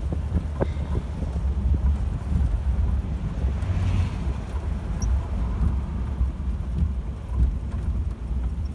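1948 Ford Sportsman's original flathead V8 running as the car drives along, heard from inside the car as a steady low rumble mixed with road and wind noise.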